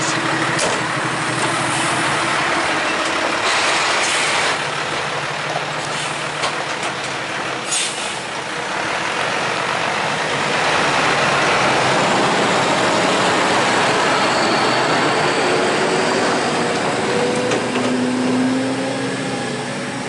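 Diesel engine of a DeSoto log truck loaded with timber, running steadily as the truck pulls away and drives past, louder in the second half. Two brief sharp noises stand out about 4 and 8 seconds in.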